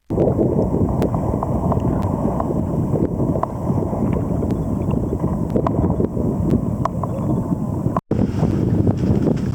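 Wind buffeting the microphone with water rushing past, as heard from a rider moving over the sea. The sound drops out for an instant about eight seconds in.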